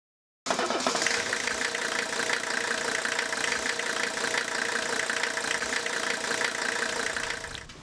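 Engine idling with a steady, rapid knocking clatter, starting abruptly about half a second in and dying away near the end.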